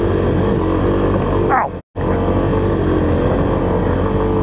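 Kawasaki KLX300's single-cylinder four-stroke engine pulling hard in first gear up a steep rocky climb, with wind buffeting the camera's external mic. The engine pitch rises briefly and the sound cuts out for a moment a little under two seconds in, then the engine runs on steadily.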